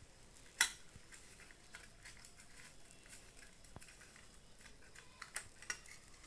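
Light metallic clicks and taps of small parts and hand tools being handled while a microwave magnetron is taken apart, with one sharp click about half a second in and two more near the end.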